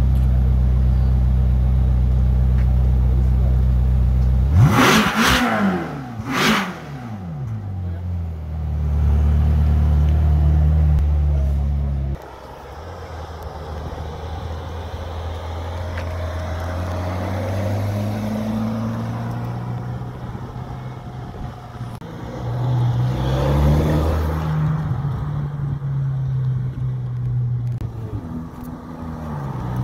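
Ferrari California's V8 idling, then blipped twice in quick succession about five seconds in, each rev rising sharply and falling back to idle. After a sudden change, Ferrari V8s accelerating away and driving past, their pitch climbing and dropping, with the loudest rev about three quarters of the way through.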